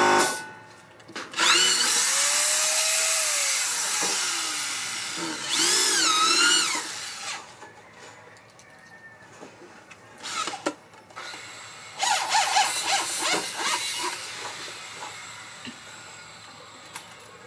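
Corded electric drill boring into wood in three bursts, its motor whine rising and falling in pitch as the trigger is squeezed and the bit loads up.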